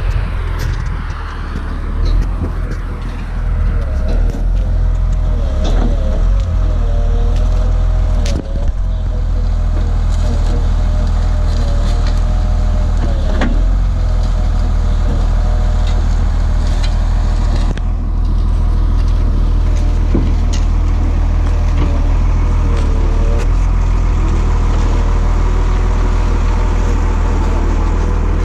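Volvo motor grader's diesel engine running steadily under working load, with a whine that wavers in pitch, gravel scraping under the blade and a few sharp knocks.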